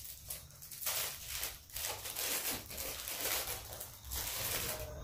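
Shiny red wrapping paper crinkling and tearing as a small gift box is unwrapped, in irregular crackles that start about a second in.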